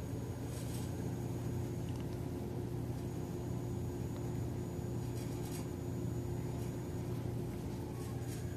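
A steady low mechanical hum, with a few brief soft rustles about a second in, midway and near the end.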